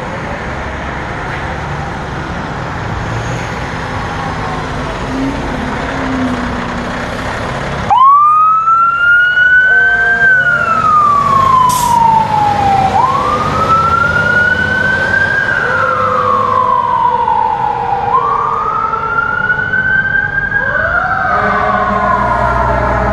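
An aerial fire truck's engine runs with a steady rumble for about eight seconds. Then its sirens come on suddenly: a wail that rises quickly and falls slowly about every five seconds, with a second, lower siren tone sweeping alongside and more siren tones overlapping near the end.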